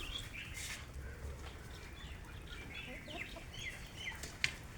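Chickens clucking, with short calls scattered throughout, and a sharp click about four and a half seconds in.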